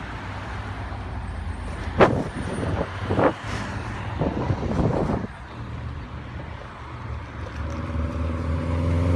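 Road traffic: cars and trucks driving past, with a few louder passes in the first half. Near the end a vehicle accelerates and its engine rises in pitch.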